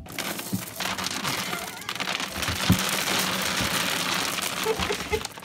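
A dog digging in a plastic trash can, scrabbling through and flinging out loose debris: a continuous rustling crackle with a few dull thumps against the bin.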